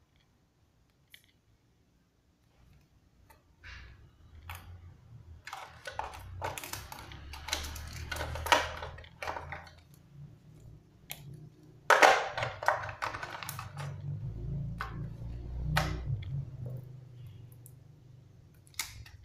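Smartphone packaging being handled: clear plastic film crinkling and rustling, with scattered light clicks and taps of the box parts and the charger. Near silence for the first few seconds, with the loudest crackles about halfway through.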